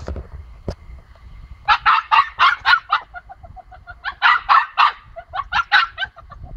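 Pomsky puppy yapping in quick strings of high-pitched barks, three bursts of several yaps each with softer yips in between: demand barking to be let out through a shut gate.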